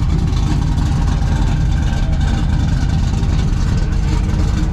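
A vehicle engine idling steadily, with a low, even note that does not change.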